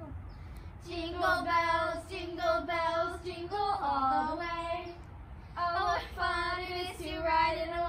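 A girl singing a Christmas carol unaccompanied, in long held notes, with a short break about five seconds in.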